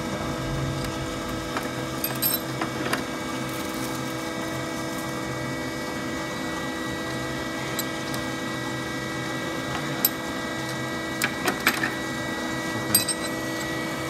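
Steady hum of running machinery, with scattered light metal clicks and knocks as the upper mold of a soap stamping machine is handled and lifted out. A cluster of clicks comes about two thirds of the way through.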